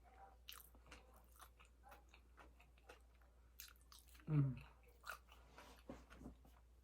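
A person chewing and biting food close to the microphone, with many small wet, crunchy clicks. A brief hum of the voice about four seconds in.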